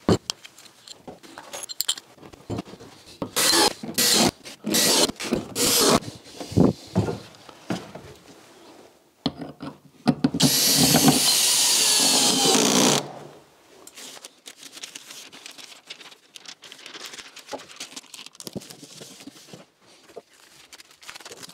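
Power drill running steadily for about three seconds, driving a long screw with a large washer through a rigid foam insulation panel into a rafter. Before it come scattered knocks, rustling and handling noises.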